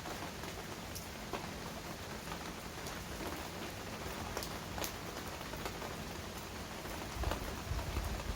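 Heavy rain falling steadily, with single drops striking sharply now and then. A low rumble comes in near the end.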